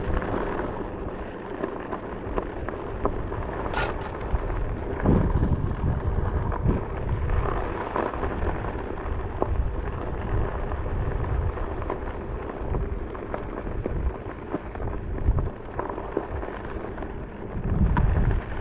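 Rumbling road noise of a one-wheeled board ridden over bumpy hard-packed dirt, with heavier jolts now and then and scattered small clicks.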